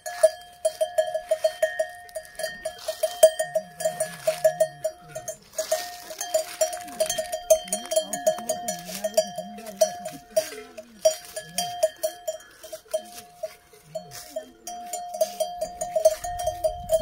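Bell on a grazing cow's collar clanking in quick, irregular runs of metallic dinks, several a second, with short pauses about five seconds in and again a little past the middle.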